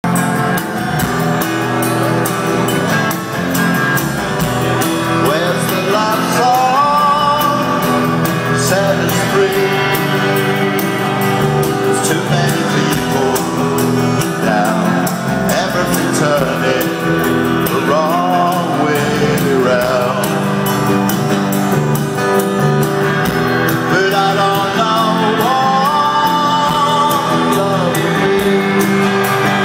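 Live rock band playing a song: a man singing over electric guitars and drums, heard from the audience.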